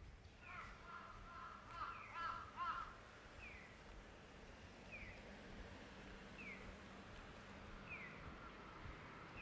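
A crow cawing several times in the first few seconds. Throughout, a short falling chirp repeats evenly about every second and a half.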